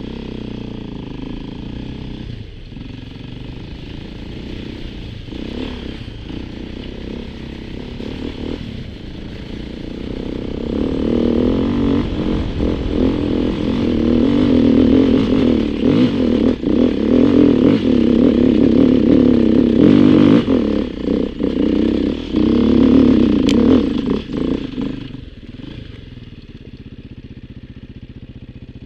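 Beta 350 RR enduro motorcycle's single-cylinder four-stroke engine running under throttle on a dirt trail, growing louder from about ten seconds in as it climbs, with knocks and rattles from the rough ground. After about twenty-five seconds it drops back to a lower, steady note as the bike slows.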